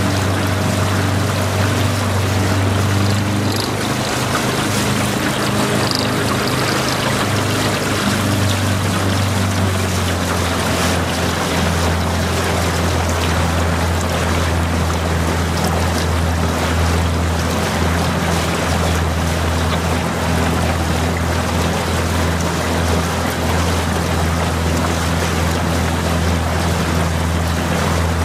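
Outboard motor of a boat following the rowers, running steadily with a low hum that drops slightly in pitch about ten seconds in, over a steady rushing noise of water and wind.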